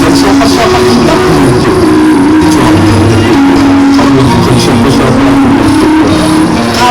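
Music played very loud through a large outdoor PA sound system during a sound check, with a sustained melody over a steady beat.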